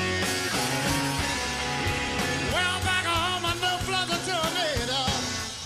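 Live slow blues: electric guitar over a band, with a male voice starting to sing about two and a half seconds in.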